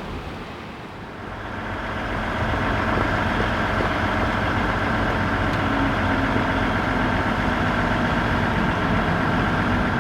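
Diesel train engine running, growing louder over the first two seconds and then holding steady with a low hum and a higher whine.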